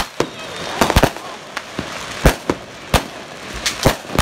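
Consumer fireworks going off: about a dozen sharp, irregular bangs, several in quick pairs, over the steady hissing crackle of a ground fountain firework spraying sparks.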